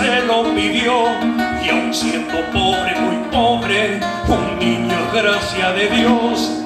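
A man singing a song, accompanying himself on acoustic guitar.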